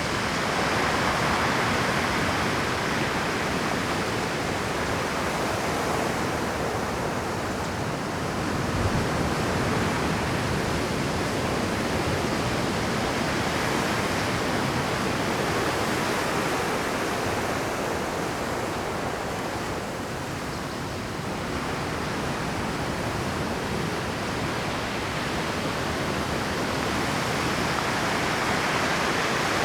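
Heavy Pacific surf breaking and washing over shoreline rocks, a continuous rush of water that swells and eases slowly, with one brief thump about nine seconds in.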